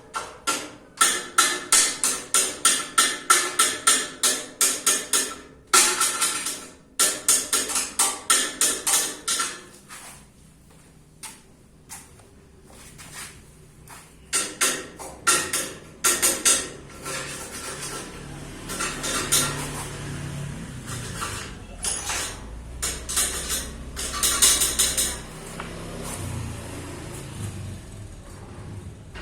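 Repeated hammer blows on steel, about three a second, each ringing at the same pitch. They come in runs with pauses between. A low, wavering hum comes in during the second half.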